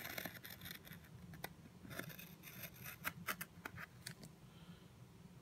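Small folding knife blade cutting the paper seal along the lid of a wooden cigar box: faint scratches and clicks, thinning out after about four seconds.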